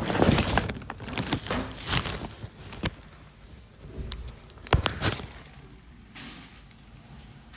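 Scattered knocks, clicks and rustling in a small tiled toilet room, busiest in the first couple of seconds, with a few sharp knocks around the middle before it quietens.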